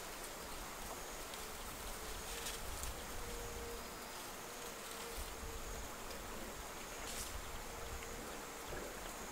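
Faint insect buzzing that comes and goes over a steady background hiss, with a few soft clicks of a knife cutting frogs on a stone.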